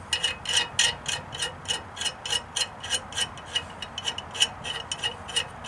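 Ratchet wrench clicking in quick, slightly uneven strokes, about four or five clicks a second, as a nut is run down on a hydraulic valve fitting.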